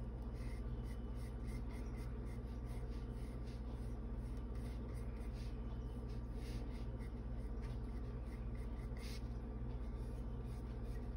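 Small flat paintbrush stroking and dabbing acrylic paint onto a wood panel: soft, irregular scratchy brush strokes, over a steady low hum.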